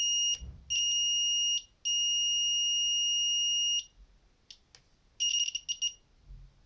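Cheap digital multimeter's continuity buzzer giving a steady high-pitched beep through the test leads. It cuts out twice, then, after about a second of quiet, comes back as short broken, crackly pips near the end, the distortion the owner points out.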